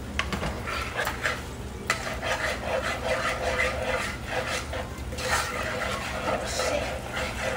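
Gravy being stirred hard in a metal saucepan, a run of quick, irregular scraping strokes against the pan as added liquid is worked in to thin the too-thick gravy.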